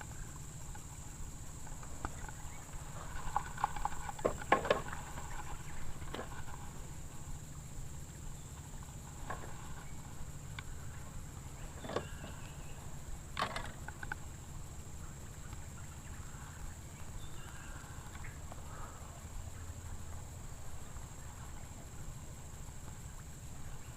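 Steady, high-pitched drone of insects, with a few scattered knocks and clicks, a cluster a few seconds in and two more about halfway through.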